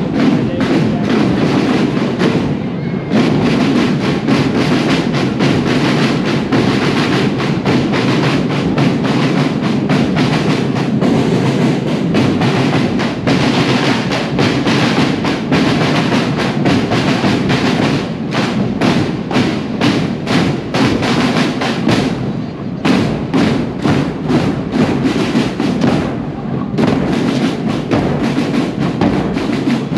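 Parade marching drums playing a steady beat, with a few short breaks in the rhythm.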